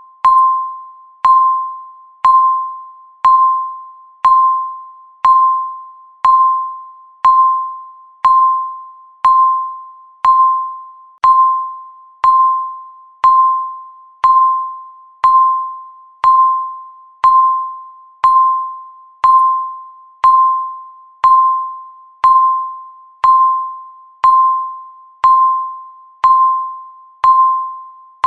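Countdown timer's electronic beep marking each second: one short ding-like tone a second, each starting sharply and dying away quickly, evenly repeated.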